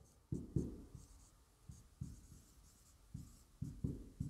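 Marker pen writing on a whiteboard: a string of quiet, short, uneven strokes with small gaps between them.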